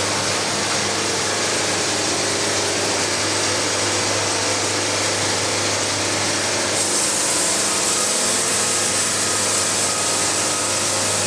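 Portable band sawmill running steadily, its engine humming while the band saws through a log; about seven seconds in the cutting noise turns brighter and hissier.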